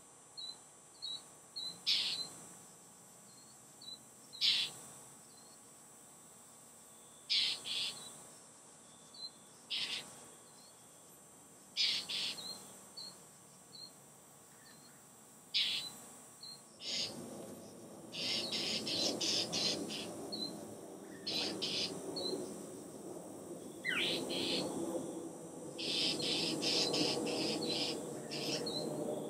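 Northern mockingbirds giving harsh, scratchy scolding calls a second or two apart, mixed with soft chip notes: mobbing calls aimed at a perched great horned owl. About halfway through, the calls come in quick runs of several. A low rushing noise also rises at that point and carries on to the end.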